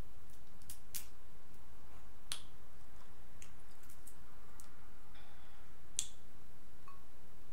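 Crab leg shells being cracked and snapped apart by hand: a scatter of sharp cracks and clicks, the loudest about two seconds in and again about six seconds in, over a faint steady low hum.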